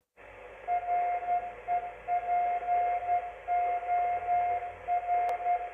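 Morse code: a single-pitch tone keyed on and off in short and long elements over a steady hiss, as heard from a radio receiver. One sharp click comes near the end.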